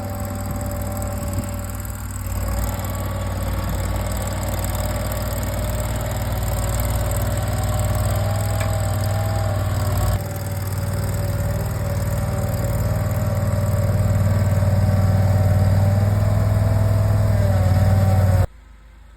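An engine running steadily, with a deep hum and a slightly wavering higher drone, cutting off suddenly near the end.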